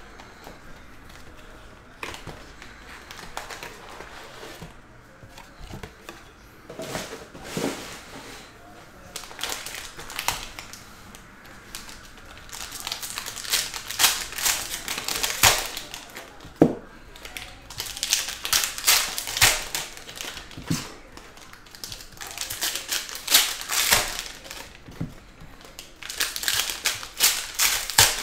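Foil wrappers of trading-card packs crinkling and tearing open, with cards being handled. The crackling comes in irregular bursts and grows louder about halfway through.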